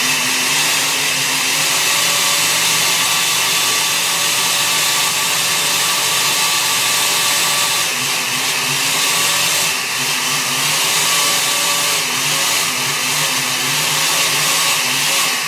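Countertop blender motor running with the button held down, grinding a large piece of tomato into the sauce. It is a loud, steady whir with a low wavering hum that comes on suddenly and dips briefly about ten seconds in.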